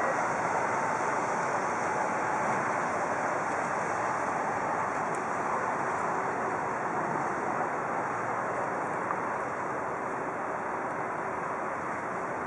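Steady harbour ambience: an even wash of wind and water noise, easing slightly toward the end, with no ship's horn sounding.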